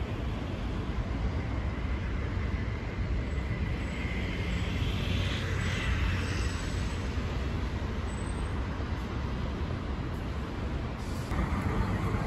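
Outdoor city ambience: a steady low rumble of road traffic, with a hiss that swells and fades about five to six seconds in, like something passing. About eleven seconds in, the background changes to a brighter, busier noise.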